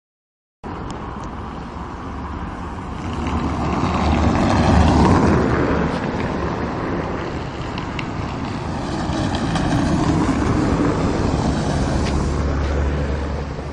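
Street traffic noise: a steady rumble of passing road vehicles that swells twice, about four seconds in and again around ten seconds, as vehicles go by close to the microphone.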